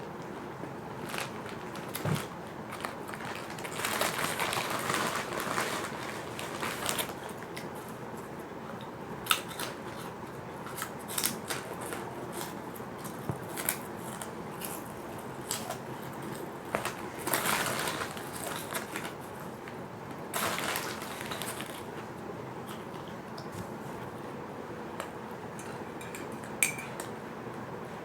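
Crisp fish crackers being bitten and chewed close to the microphone: sharp cracks scattered throughout, with several longer bouts of crunching.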